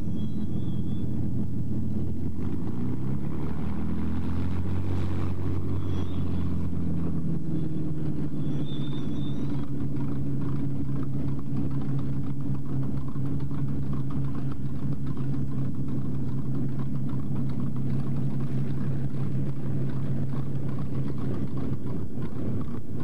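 Hawker Hurricane's Rolls-Royce Merlin V12 piston engine running on the ground with its propeller turning. Its pitch shifts a few seconds in, then settles to a steady run.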